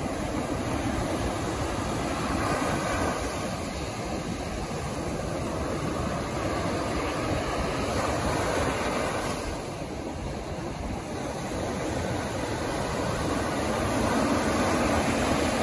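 Ocean surf breaking and washing up a sandy beach: a steady rushing of waves that eases a little about two-thirds of the way through and swells again near the end.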